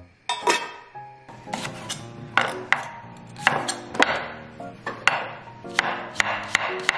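Background music with held notes, crossed by irregular sharp knocks from kitchen prep work, a few each second.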